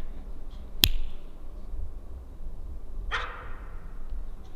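A dog barking at downed game: a short sharp bark about a second in and a fuller bark about three seconds in, the tracking dog giving tongue over the quarry it has found.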